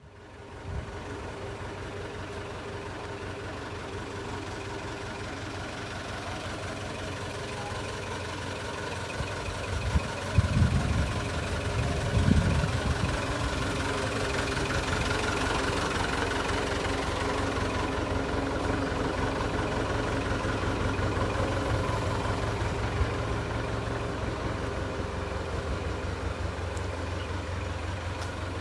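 Diesel engine of a JCB 3CX backhoe loader running steadily, with a few louder low surges about ten to twelve seconds in.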